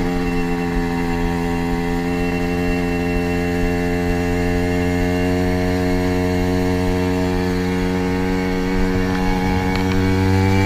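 Classic Vespa scooter's two-stroke single-cylinder engine running at steady high revs while riding, its buzzing note holding nearly level and getting a little louder and higher about ten seconds in.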